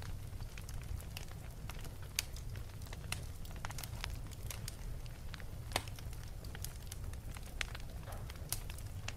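Wood fire in a fireplace crackling: irregular sharp pops and snaps over a low steady rumble, with one louder pop a little past the middle.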